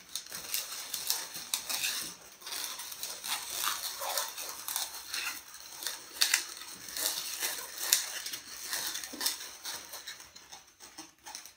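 Inflated latex modelling balloons squeaking and rubbing against each other and the hands as they are twisted and joined together, a busy run of short squeaks with a few sharper ones.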